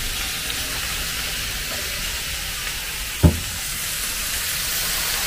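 Slices of beef sizzling steadily on a George Foreman electric griddle, a constant frying hiss. A single short thump about three seconds in.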